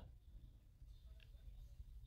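Near silence: a faint low steady hum of the room.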